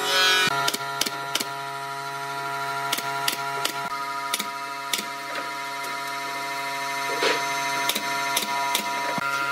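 Pneumatic nail gun firing nails into wooden strips: a sharp shot every half second to a second, irregularly, over a steady drone.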